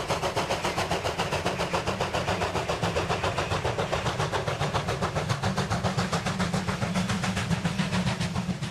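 Steam locomotive hauling a passenger train, its exhaust chuffing in a rapid, even beat of about six a second over a steady low rumble.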